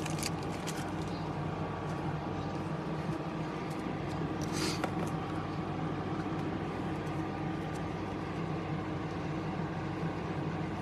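Steady low machine hum of room equipment, with faint clicks and rustles of trading cards being handled and a short swish of cards sliding about halfway through.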